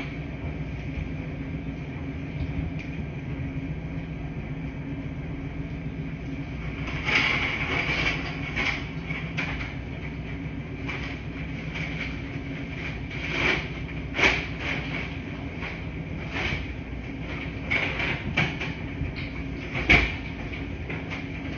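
Laundry machine running with a steady hum, joined from about a quarter of the way in by irregular clicks and clunks roughly every second, the loudest near the end.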